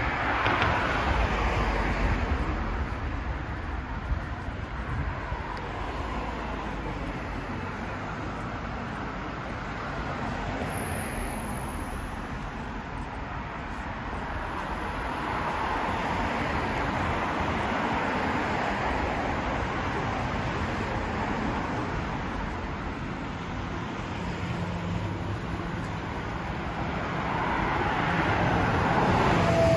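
City street traffic: a steady wash of road noise with vehicles swelling past, at the start, through the middle and again near the end.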